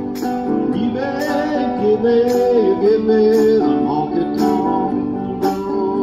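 Amplified archtop guitar playing an instrumental break: a lead line with sliding, bent notes over chords struck about once a second.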